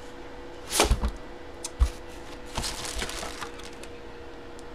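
Cardboard box opened and a jersey in a plastic bag lifted out, giving cardboard and plastic handling noise: a sharp crack just under a second in, a dull thump near two seconds, and lighter crinkles and clicks.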